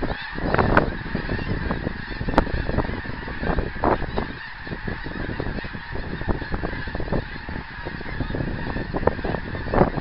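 A large flock of snow geese flying over, many birds calling at once in a constant, overlapping chorus of honks.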